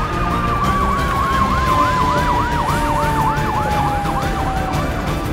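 Fire engine sirens: one in a fast yelp, rising and falling about three times a second, over a second long tone gliding slowly lower. Both stop shortly before the end.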